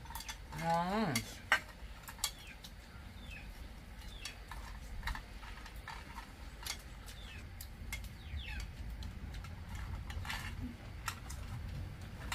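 Utensils clicking against bowls and dishes at a meal, a few scattered sharp clicks. A short vocal sound about half a second to a second in.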